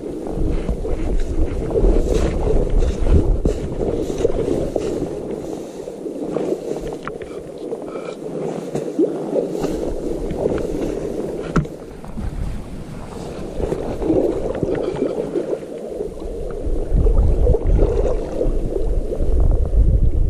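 River water rushing steadily, with wind buffeting the microphone in gusts that ease off for a while in the middle.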